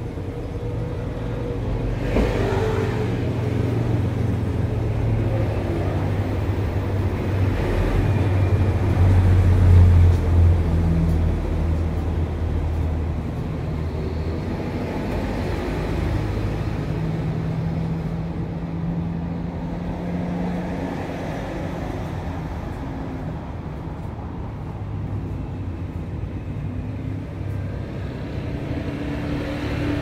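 Road traffic passing by: engines of passing vehicles as a continuous low drone that swells to its loudest about ten seconds in, then eases off.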